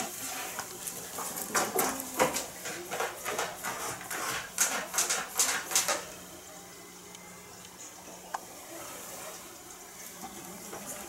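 A cat pawing and scratching inside a litter box, a rapid run of scratchy rustles and clicks for about six seconds, then only an odd faint click.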